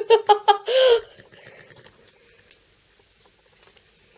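A girl's short burst of giggling in the first second, then faint small clicks and squishes of slime being handled.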